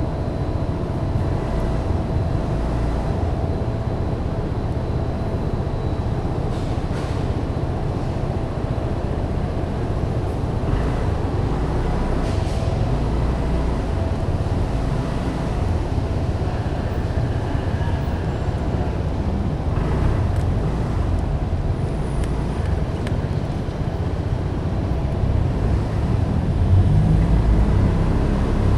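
Underground car park ambience: a steady low rumble of engines and traffic echoing in the concrete basement, with a faint constant hum. The rumble swells near the end as a vehicle passes close.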